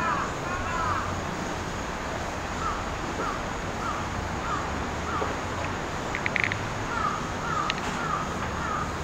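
A bird calling in runs of short, repeated calls, about one every half second and a bit, with a brief cluster of clicks about two-thirds of the way through, over a steady background hiss.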